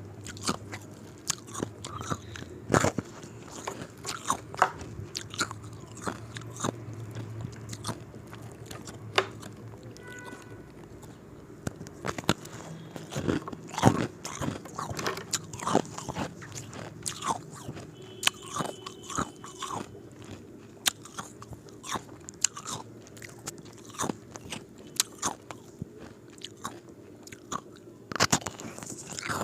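Square ice cubes being bitten and crunched between the teeth, with irregular sharp cracks throughout.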